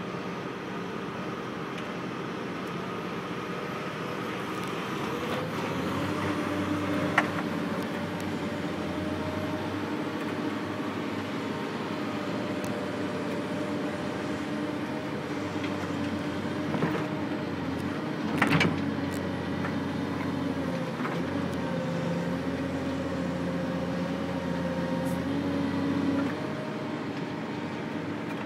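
Heavy diesel engine of a log loader running under changing load, its pitch stepping up about five seconds in and dipping and rising again later. A few sharp knocks cut through, the loudest about two-thirds of the way through.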